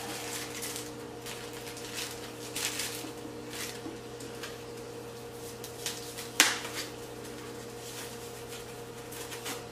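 Hands rustling and handling the wrapping of a small Coach card case as it is unwrapped, in scattered soft crinkles and taps, with one sharp click about six and a half seconds in. A steady low hum runs underneath.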